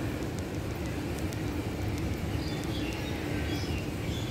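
Outdoor park ambience: a steady low rumble and hum of city noise, with small birds chirping from about two seconds in.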